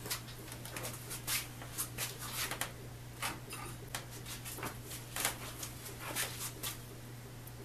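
Cloth shop rag being rubbed and handled on a workbench, giving irregular short scrapes and small clicks, over a steady low hum.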